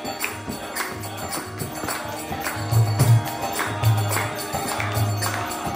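Instrumental kirtan interlude: a harmonium holding chords over a mridanga drum's steady beat, with hand claps on the beat and repeated deep drum strokes.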